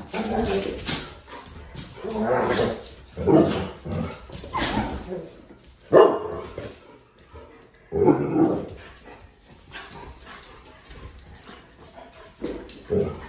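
Dogs in rough play, a German shepherd, a yellow Labrador and a small tan dog, barking in short bursts every second or two, with quieter gaps between.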